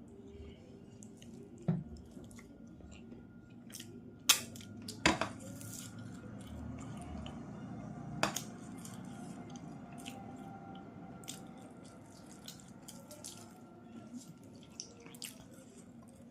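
Close-up eating sounds from a meal of fish curry and rice: wet chewing and lip smacks, with a few sharper clicks standing out.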